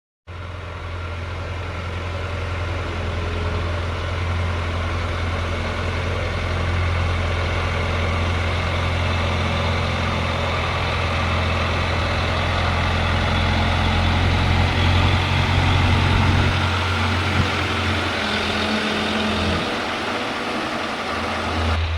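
A crane's heavy engine running steadily with a deep hum. Its note shifts and drops back about three-quarters of the way through.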